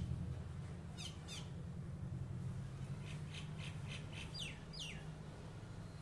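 Common myna calling: sharp whistles that drop steeply in pitch, a pair about a second in and another pair near the end, with a quick run of short repeated notes between them. A steady low hum runs underneath.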